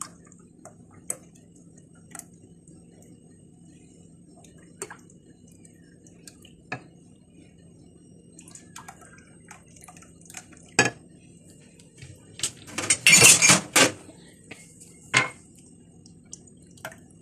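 Glass mugs and a blender jug clinking and knocking on a stone counter as thick tahini sauce is poured from one into the others, with scattered light clinks and a louder burst of clatter about thirteen seconds in.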